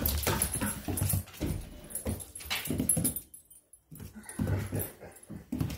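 A moyen poodle chasing a laser dot: irregular scuffs and thumps of its paws scrambling on a wood floor, with dog whimpers mixed in. There is a brief lull a little past halfway.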